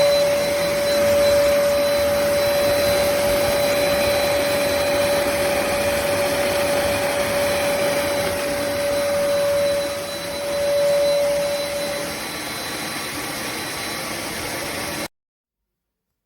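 Black+Decker BXVC30XTDE wet/dry vacuum running, a steady rushing noise with a steady whine. Past the middle the whine fades and the sound drops lower, then cuts off suddenly near the end.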